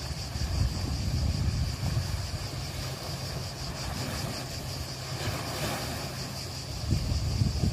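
Wind rumbling and gusting on the microphone, swelling about a second in and again near the end, with a steady, faintly pulsing high-pitched buzz running above it.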